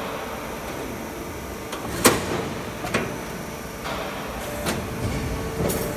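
Sound barrier box roll forming line running: a steady machine hum with several sharp sheet-metal clanks, the loudest about two seconds in.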